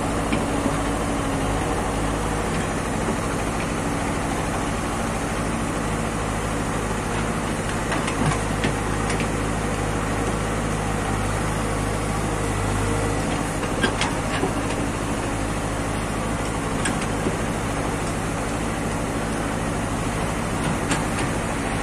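Komatsu mini excavator's diesel engine running steadily as the boom and bucket are worked, the engine pulling a little harder for a few seconds midway. A few sharp knocks are heard through the run.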